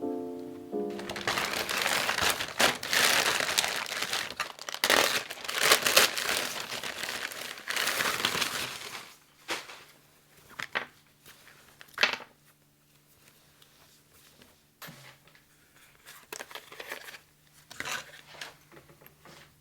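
Packaging crinkling and rustling as a product is unwrapped, dense for the first eight seconds or so, then thinning to a few scattered crinkles and clicks. Background music plays underneath.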